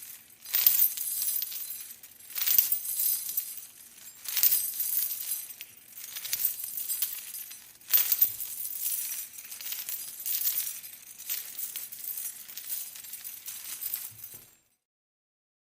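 Metal chains jangling in a walking rhythm: a bright clinking rattle rises and falls about every two seconds, each step shaking the links. The jangling stops near the end.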